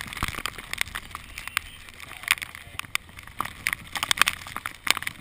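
Storm wind noise on the microphone, with irregular sharp taps of rain and spray hitting the camera on a small open boat in floodwater.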